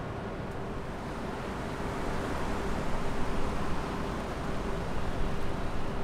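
Steady road-traffic noise with a faint steady hum, growing louder from about two seconds in as a vehicle goes by.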